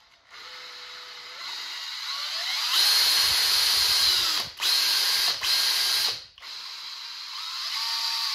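Makita cordless drill's brushless motor, run without Hall sensors by a sensorless controller, spinning in reverse: it starts about half a second in and speeds up in steps to full speed with a high whine. It cuts out briefly twice around the middle, stops for a moment, then runs again more quietly.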